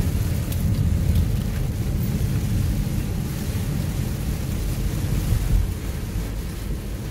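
Car driving through heavy rain, heard from inside the cabin: a steady low rumble of road and wind noise with rain striking the windshield.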